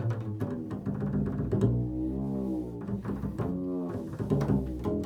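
Improvised music on a low string instrument. Plucked notes are followed in the middle by a long note that slides up in pitch and back down, with more plucked notes near the end.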